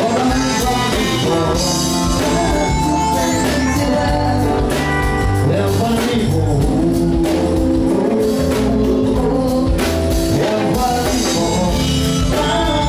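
Live band music: a singer over guitar and a steady bass line.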